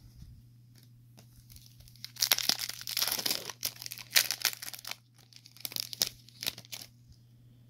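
Foil trading-card pack (2023 Panini Select) being torn open and crinkled, starting about two seconds in, with irregular crackles of the wrapper as it is pulled apart.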